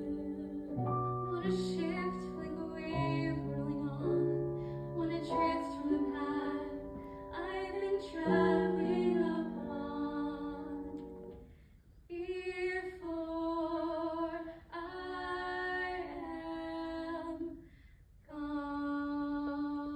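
Classical duet with piano: the piano plays held chords at first, and from about twelve seconds in a trained female voice sings short phrases with vibrato, with brief breaks between them.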